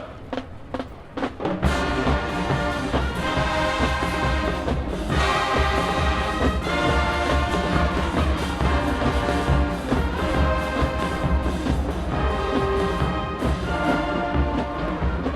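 University marching band: a few separate percussion hits, then the full band comes in about a second and a half in, brass playing sustained chords over heavy low drums.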